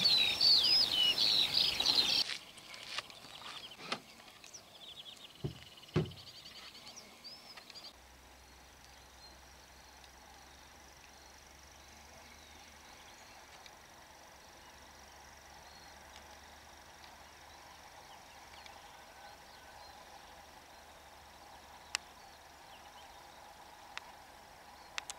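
Dawn birdsong in a rural field, loud and busy for the first two seconds, then cut off to faint outdoor ambience. That ambience holds a short bird trill, two or three dull knocks a few seconds in, scattered faint bird calls and a steady, faint, high insect buzz.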